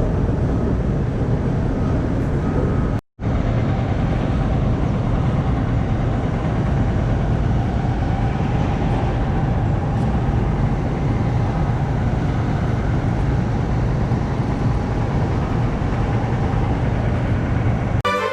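Steady, loud low rumble of city transit noise with no speech. It cuts out completely for a split second about three seconds in.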